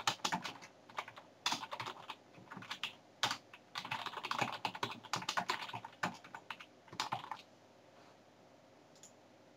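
Computer keyboard typing in quick runs of keystrokes, which stop about seven seconds in.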